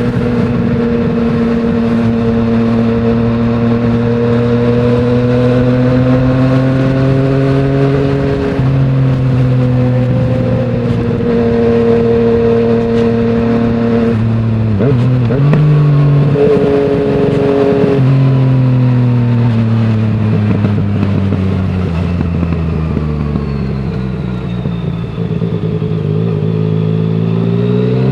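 Yamaha MT-09's three-cylinder engine through an Akrapovic full exhaust system with no dB killer, running under way. The engine speed rises and falls, stepping several times through the middle, sinks steadily over the last third, then climbs again at the very end.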